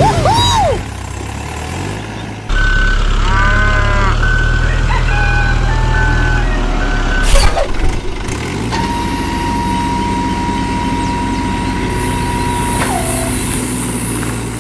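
Steady low engine hum from a vehicle, with high beeps coming on and off for a few seconds, then a long steady tone held for about four seconds. The sound changes abruptly several times, as at edits.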